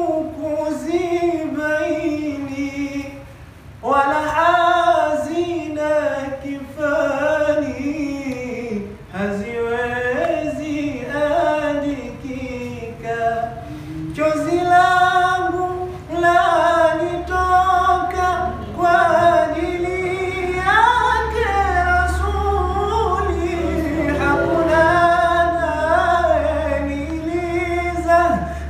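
A group of young male voices singing a melodic song together without accompaniment, with long held notes.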